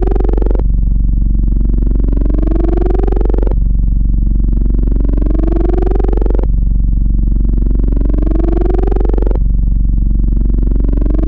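Electronic soundtrack music: a loud, distorted synthesizer tone over a deep, constant bass hum, its pitch sliding upward and snapping back about every three seconds.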